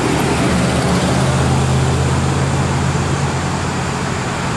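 A motor vehicle's engine running with a steady low hum over road-traffic noise. The hum is strongest for the first three seconds or so, then eases.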